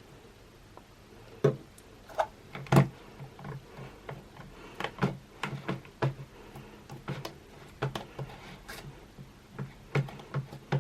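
Clear slime with Orbeez water beads in it being worked by hand, making irregular wet clicks and pops that start about a second and a half in.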